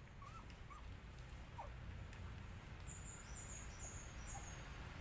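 Faint squeaks of young puppies or kittens: a few short calls that rise and fall, three in the first second and a half and one more near the end. A quick run of four high chirps comes in about three seconds in, over a low steady rumble.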